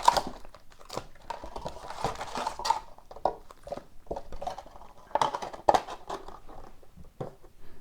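Hockey card packs and their cardboard hobby box being handled: irregular light taps, clicks and short rustles as packs are moved and pulled from the box.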